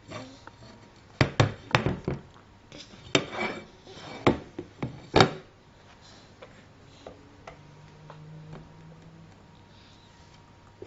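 Plate and objects knocking and clattering on a table: a handful of sharp knocks in the first half, the loudest about five seconds in, then only faint small sounds.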